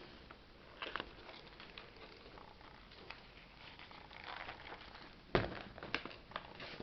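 Quiet handling of a paper game book: pages being turned and leafed through, with soft rustles, small clicks, and a sharper knock about five seconds in.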